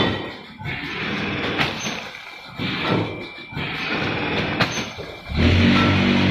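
Automatic vertical form-fill-seal packing machine running, with a sharp mechanical knock about every second and a half as it cycles through bags. About a second before the end, background music comes in and covers it.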